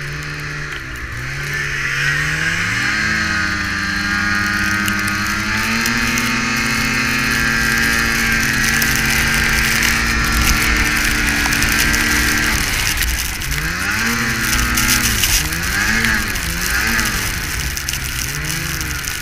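Ski-Doo snowmobile engine under way, its pitch climbing in steps over the first several seconds and then holding high. A little past halfway the revs drop, and after that they rise and fall several times as the throttle is worked on and off.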